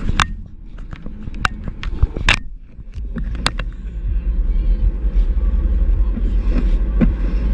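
Road and engine rumble inside a moving Vauxhall Astra GTC, growing louder about three seconds in, with a few sharp knocks and rattles scattered through.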